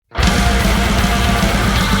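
Death metal recording starting abruptly at full volume a split second in: heavily distorted guitars over fast, rapidly repeating kick drum beats.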